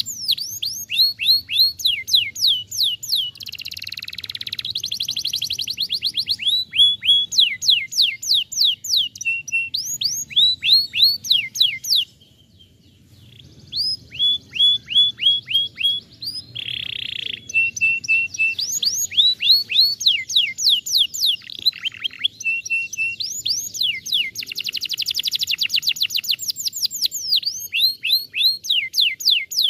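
Domestic canary singing a long, fast song: runs of quick falling whistled notes repeated many times a second, some buzzy rolls, and a brief pause about twelve seconds in.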